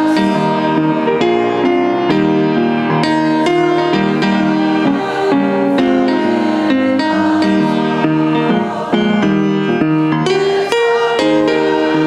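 Instrumental music, a steady run of held notes and chords changing in an even rhythm.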